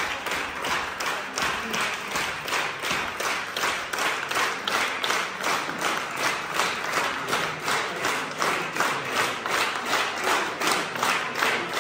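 Audience applauding, the claps falling together in a steady rhythm of about three a second.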